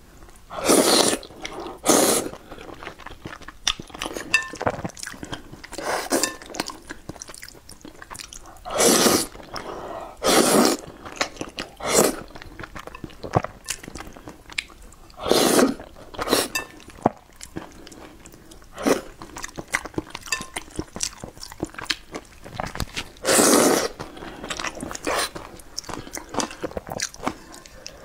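Close-miked eating of wide flat noodles in sauce: steady wet chewing with small mouth clicks, broken by about a dozen loud half-second noisy bursts as mouthfuls of noodles are taken in.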